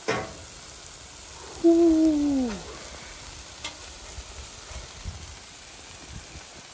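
Thick beef burger patties sizzling on a Blackstone flat-top griddle. There is a sharp knock at the start, a few light ticks later on, and a loud tone that slides down in pitch for about a second, around two seconds in.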